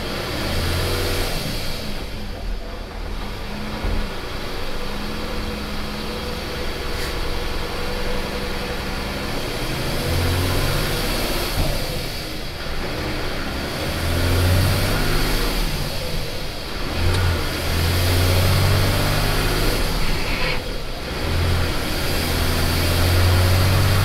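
Semi truck's diesel engine heard from inside the cab as it pulls and accelerates. The engine note drops away and picks up again several times in the second half as the driver shifts up through the gears of the manual transmission.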